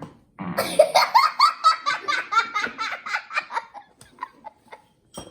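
A boy laughing hard in quick repeated bursts that taper off after about three and a half seconds, then a single sharp click near the end.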